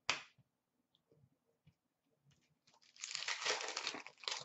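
Foil wrapper of a hockey card pack crinkling as it is torn open, starting about three seconds in and lasting nearly two seconds, after a brief rustle at the start.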